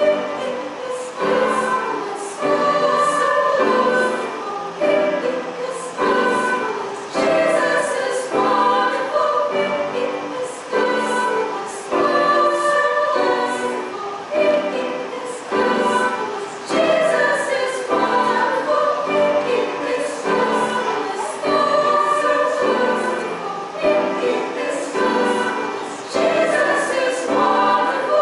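Choir of voices singing a hymn in chorus, moving from note to note about once a second.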